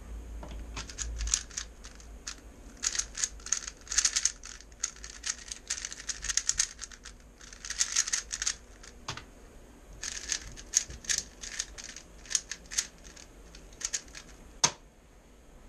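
3x3 Rubik's-type speedcube turned at speed-solving pace: rapid clicking and clacking of plastic layers snapping through turns, in quick bursts with a short pause about nine seconds in. A single sharp click stands out near the end.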